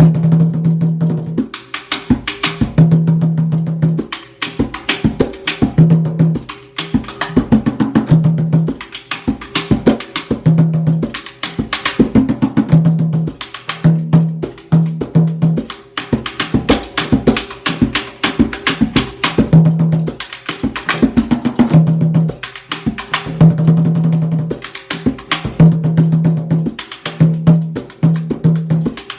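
Solo hand percussion playing a fast samba groove: quick, sharp high strikes and clicks over a low, ringing bass tone that sounds again and again, about once a second.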